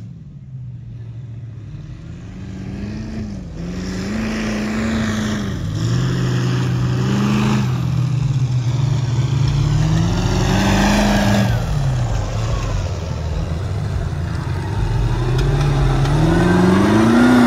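Mud truck's engine revving up and down again and again as it bogs through mud, over a rushing noise of churning tyres and mud. The revs climb steeply to the loudest point near the end.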